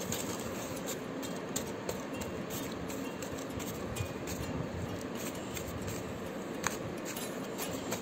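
Hands pressing and smoothing soft, sticky bread dough in a foil-lined baking tin: quiet handling noises with faint crinkling of the aluminium foil over a steady background hiss, and a couple of light clicks.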